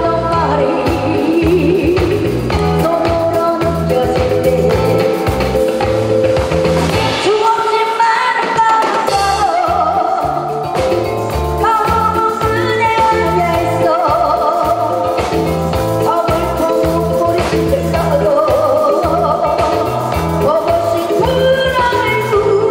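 A woman singing a Korean song into a microphone over accompaniment with a steady drum and bass beat. The beat drops out for about a second around eight seconds in, then comes back.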